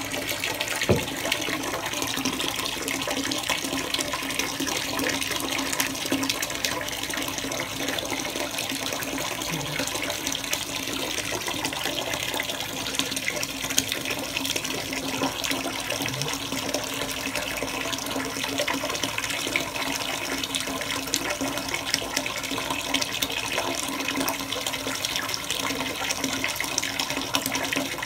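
Water running steadily from a tap into a foamy bathtub, an even rushing hiss that doesn't change.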